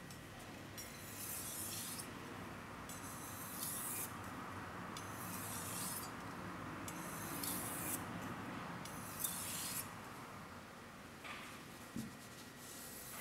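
Steel knife blade being stroked back and forth on a wet Okudo suita Japanese natural whetstone: a run of about eight gritty scraping strokes at roughly one a second, which stops about ten seconds in. A couple of light knocks follow near the end.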